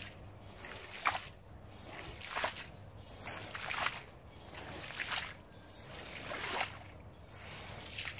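Long-handled scrub brush pushed in strokes across a wet, soapy shag carpet, giving a wet swishing scrub. There are six strokes, roughly one every second and a half, each building up and then breaking off.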